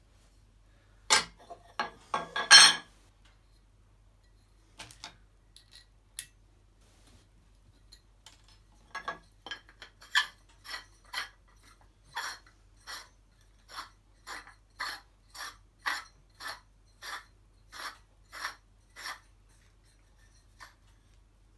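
Metal parts of a projector ceiling mount being handled: a loud clatter of pieces knocking together about a second in, a few light clicks, then a steady run of short metallic scrapes, roughly three every two seconds, that stops shortly before the end.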